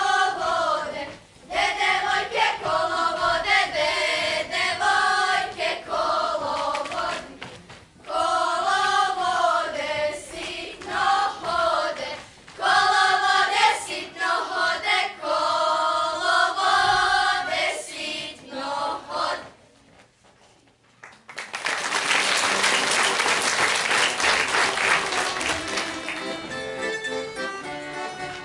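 A group of girls singing together in several phrases, stopping after about 19 seconds. After a short pause the audience applauds for about four seconds, and near the end an accordion and strings start playing.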